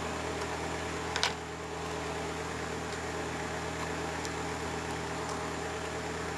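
Steady low hum with a single short click about a second in.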